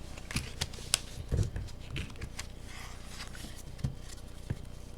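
Trading cards and packaging being handled: soft scattered clicks, taps and faint rustling, with a dull thump about a second and a half in.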